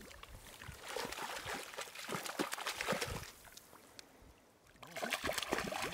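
A hooked trout splashing and thrashing at the surface as it is drawn toward a landing net, in irregular bursts of water noise, with a short lull about three seconds in.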